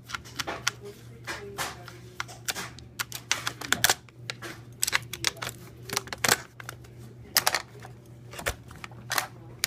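Irregular sharp clicks and taps of a small screwdriver and metal parts against a laptop's metal hard-drive cover and plastic case, as the hard-drive bay screws are undone and the drive is worked loose.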